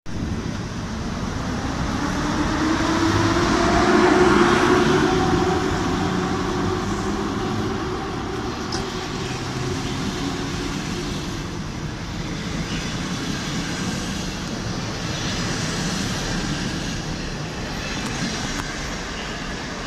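PKP Intercity EU07 electric locomotive moving past hauling passenger coaches. A whine that rises and then falls is loudest about four seconds in, followed by the steady rumble of the coaches rolling by.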